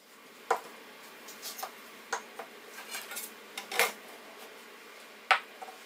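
Wooden blocks and a thin stainless steel sheet being set down and handled on a cutting mat: a handful of sharp knocks and light clatters. The loudest come about half a second in and a little after five seconds, with a short slide into a clack just before four seconds.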